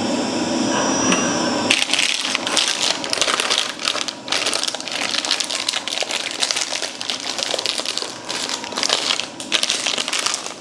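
Plastic packaging crinkling and crackling as a new hard drive is unboxed, a dense run of quick crackles starting about two seconds in. Before it, a short steady hum.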